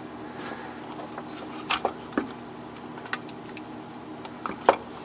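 Scattered light clicks and taps of a soldering iron and tools against a power-supply circuit board as a large 200-volt filter capacitor is desoldered and worked loose, over a steady low hum.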